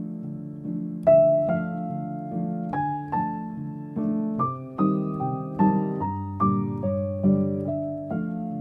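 Background piano music: a slow melody of single struck notes comes in about a second in over a repeating low accompaniment.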